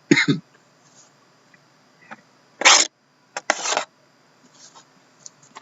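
Plastic shrink wrap being torn off a sealed box of cards in three short tearing bursts, the loudest about midway.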